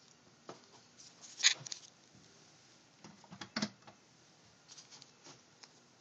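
A handful of short clicks and knocks with light rustling, the loudest a sharp click about one and a half seconds in and a small cluster around three and a half seconds.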